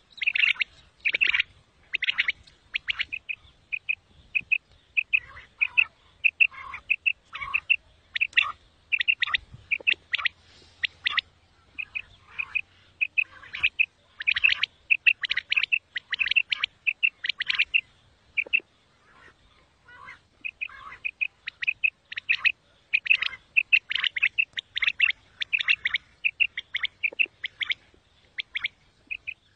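Common quail calling: short, sharp chirping notes repeated in quick groups of two or three, over and over with brief pauses, with a few lower notes mixed in.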